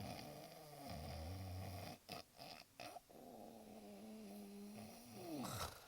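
A person snoring: uneven, drawn-out, rattling snores with short gaps between them.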